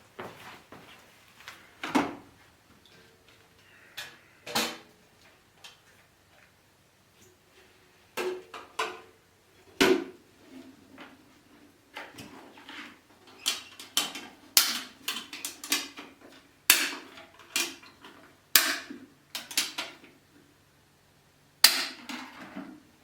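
Hand tools and metal parts clanking and knocking irregularly during work on an engine bay, some strikes leaving a short metallic ring. The knocks come in quicker clusters in the second half.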